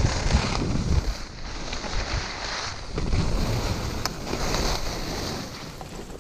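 Skis scraping and hissing over packed groomed snow, swelling and easing with each turn, with wind rushing over the microphone.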